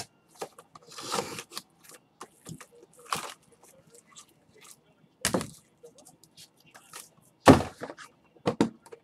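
Trading card packs and boxes being handled on a tabletop: rustling and crinkling wrappers, small clicks and taps, and a few hard thumps, the loudest about seven and a half seconds in.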